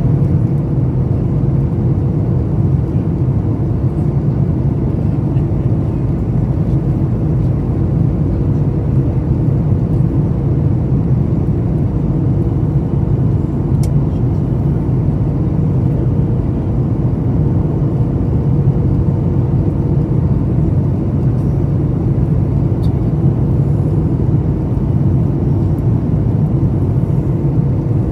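Jet airliner cabin noise on approach: a steady low rush of engines and airflow over the extended flaps, with a faint steady hum.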